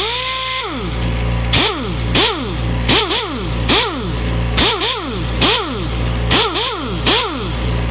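Air impact wrench triggered in short repeated bursts, about one a second, its air motor whining up in pitch and spinning down after each pull. A steady low hum runs underneath.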